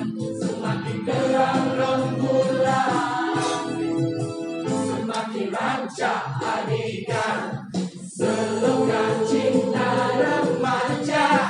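Music with a choir singing, many voices holding notes together over accompaniment, with a short break about eight seconds in.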